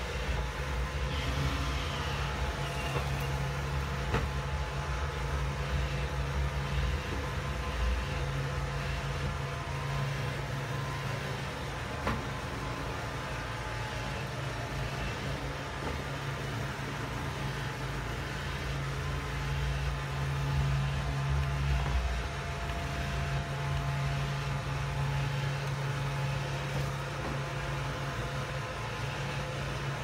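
Roomba 620 robot vacuum running: the steady hum of its vacuum motor and brushes, fading a little and coming back as the robot moves about.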